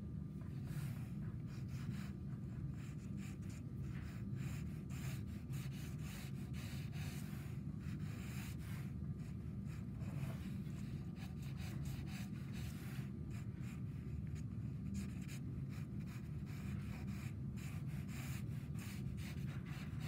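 Sienna Conté pencil sketching on paper: light scratchy strokes in irregular runs, over a steady low hum.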